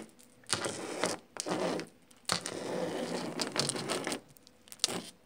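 Small plastic Littlest Pet Shop figurines and props being handled and slid across a tabletop: bursts of scraping and rustling, with a few light clicks near the end.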